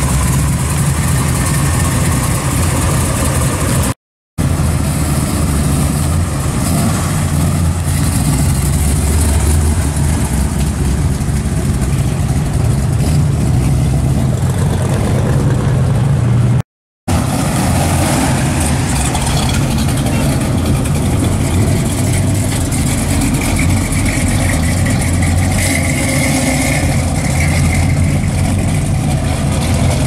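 Engines of classic American muscle cars idling and pulling away slowly, their exhaust running steadily. The sound comes in three stretches, split by two abrupt cuts to silence about four seconds in and just before halfway.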